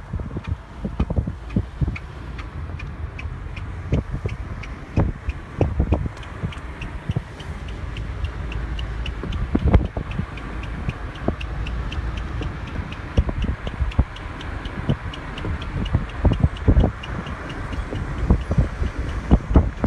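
Car driving over a bumpy road with a rhythmic high squeak, roughly four a second, that speeds up with road speed. Irregular knocks from the bumps sound over a low road rumble. The owner suspects a tire problem.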